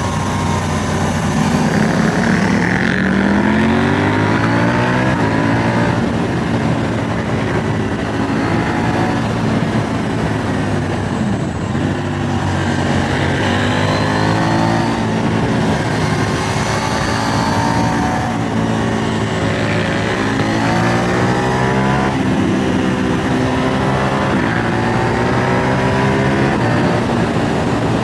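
Motorcycle engine pulling hard through the gears: the pitch climbs, drops back at each shift or roll-off, and climbs again several times. Steady wind noise rushes underneath.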